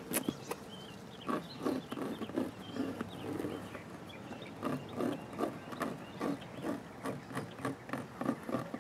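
Pencil scratching over fibreglass screen mesh laid on a cardboard box, in short irregular strokes, with the mesh rustling as hands hold it flat.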